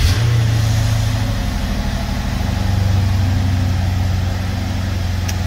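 BMW N63 twin-turbo V8 starting up. It catches right at the start, its revs flare briefly, then it settles to a steady idle.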